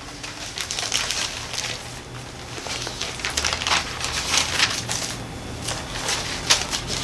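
Paper rustling and crinkling in irregular bursts as the pages of a Bible are leafed through, over a faint low hum.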